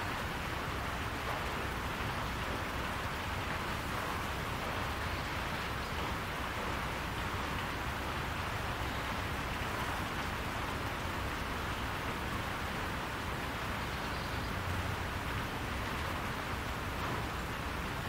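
Steady rain falling on a barn roof: an even, unbroken hiss with a low rumble underneath.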